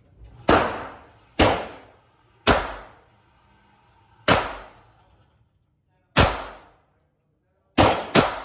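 Seven shots from a .22 LR pistol, fired one at a time at uneven intervals, the last two in quick succession. Each crack rings out briefly in the enclosed range.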